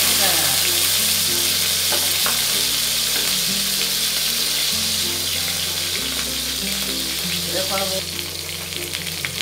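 Pieces of cooked salt cod sizzling loudly in hot olive oil in a frying pan as they are browned. The sizzle eases a little near the end, and a utensil clicks lightly against the pan a few times.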